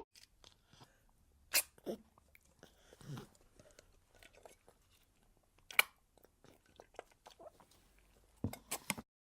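A few short, sharp crunching clicks, spaced a second or more apart, with a quick run of three or four near the end.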